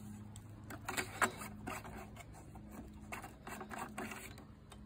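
Scattered light clicks and scrapes of a plastic dipstick cap being worked in the oil fill tube of a Tecumseh lawn mower engine while the oil is checked, over a faint steady low hum.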